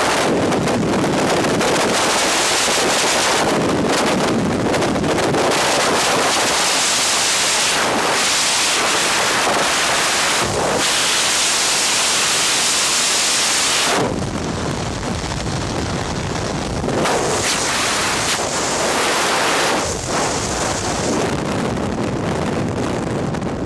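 Loud freefall wind rushing over a helmet-mounted camera's microphone during a skydive. The rush turns lower and less hissy about two-thirds of the way through.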